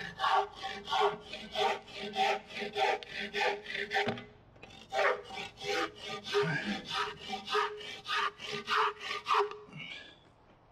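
Handsaw cutting off wooden pegs flush with the face of a timber: quick back-and-forth strokes, about three a second, with a short pause about four seconds in and stopping shortly before the end.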